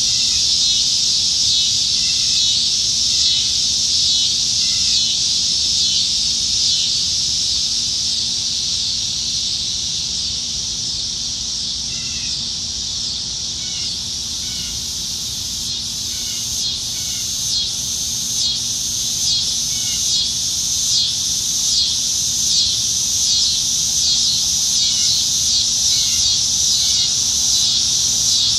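A chorus of cicadas singing in the trees on a summer evening, a loud, continuous high buzz. About halfway through, a pulsing of a little over one beat a second sets in. Faint short chirps come and go beneath it.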